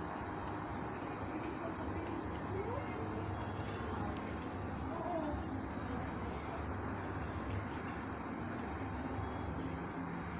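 Night chorus of crickets trilling steadily, over a low, even background rumble.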